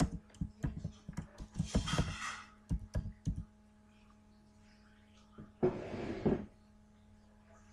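Clicks and taps of a computer keyboard and mouse in a quick irregular run over the first three seconds or so, as a slide is being edited, with two short rustling noises about two and six seconds in. A faint steady hum runs underneath.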